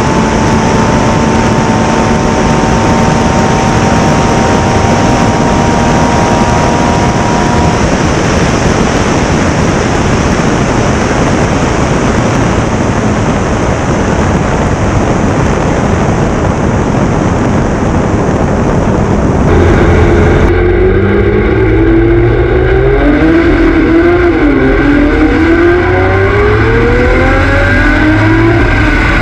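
Steady rush of wind over a land speed streamliner for the first two thirds, with a faint steady drone early on. About twenty seconds in, the car's custom-built 5-litre V12 engine comes in clearly, its pitch climbing and dipping as the car gathers speed.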